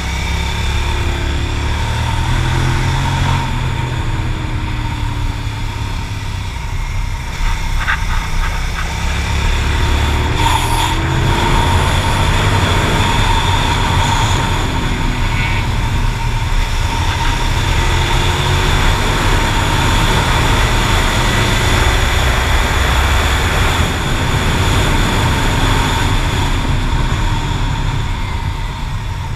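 Motorcycle engine heard from the bike while it is ridden at speed, its revs rising and falling with throttle and gear changes, under a steady rush of wind on the microphone.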